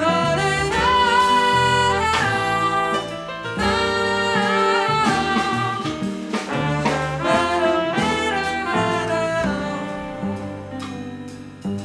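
Trumpet and trombone playing sustained melodic phrases together in a jazz ensemble, over double bass and drums; the horns fade down near the end.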